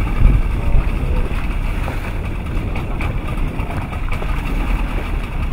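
A small boat's engine running under wind noise on the microphone, with two brief thumps in the first second.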